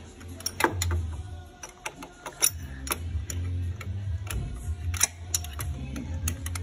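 Irregular metal clicks and clinks of an open-end wrench turning a spark plug socket, tightening a spark plug into the cylinder head.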